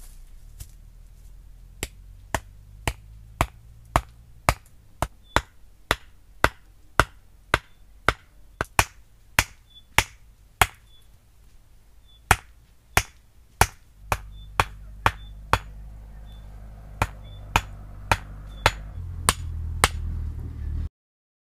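A steady series of sharp blows from a hand tool striking, about two a second, with a short pause about halfway. A low rumble joins in later, and the sound cuts off abruptly near the end.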